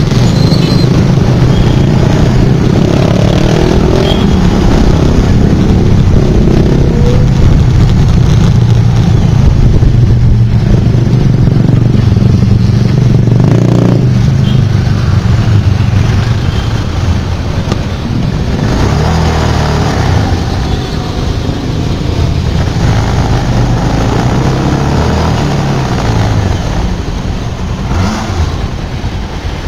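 Motorbike engine running with the surrounding noise of road traffic, heard from a moving motorbike. There is a steady low rumble throughout, a little quieter in the second half.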